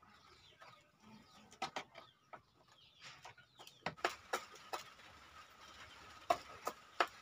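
Chickens pecking grain from plastic feeder trays cut from dish-soap bottles: irregular sharp taps of beaks on the plastic, more frequent in the second half, with occasional clucks.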